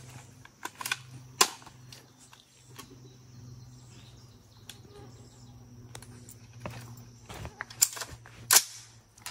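Sharp metallic clicks and clacks of an AR-10 rifle being handled and readied to fire, with the loudest about one and a half seconds in and twice near the end.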